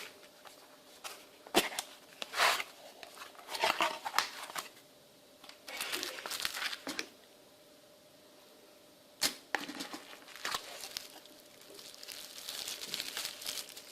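Packaging being handled and opened by hand: irregular crinkling and rustling of wrapping, with a couple of sharp clicks and a quieter pause partway through.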